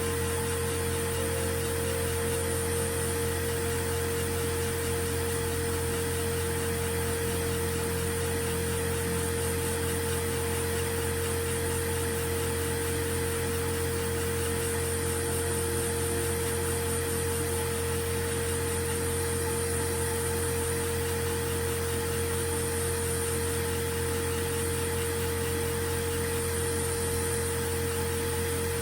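Steady mechanical hum with a constant low drone and a few fixed whining tones, unchanging throughout.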